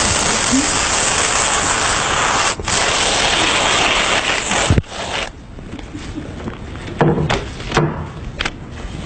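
Loud, exaggerated crackling and rustling of someone eating a snack noisily. It is dense and steady for about five seconds, with one brief break, then drops to a few separate sharp crunches.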